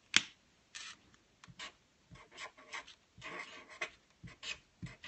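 Copic Sketch alcohol marker's brush nib writing on paper: a string of short, soft scratchy strokes with no squeak. A single sharp click comes just after the start.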